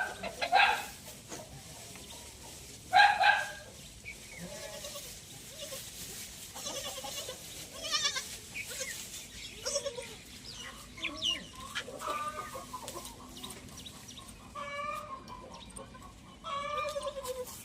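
Goats bleating, with two loud bleats in the first few seconds and more near the end, over chickens clucking.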